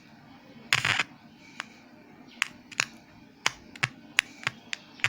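A short rustle, then a run of sharp, irregular clicks, about two a second, as a speaker's wires are pushed into the breadboard at the amplifier's output.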